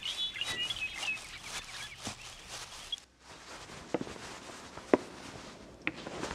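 Small birds chirping over a run of footsteps. After a sudden break about three seconds in, a few separate knocks follow.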